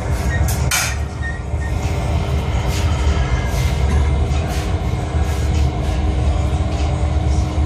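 Glass furnace's burner and blower running with a loud, steady low rumble and a constant hum on top, with a couple of sharp clinks near the start.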